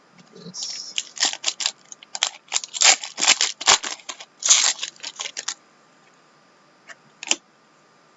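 Trading cards and their pack wrapper being handled: a quick run of crinkling and flicking sounds for about five seconds, then two soft clicks near the end.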